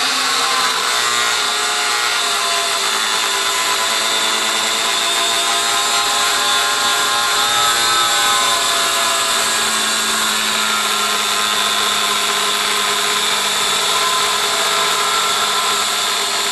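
Angle grinder with a 6-inch cutting wheel, its guard removed, cutting into the metal case of a large pulse capacitor: one continuous loud whine over a grinding hiss as the wheel bites the metal.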